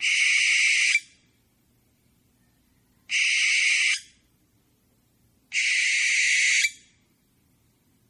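An owl gives three harsh screeches, each about a second long, spaced two to three seconds apart.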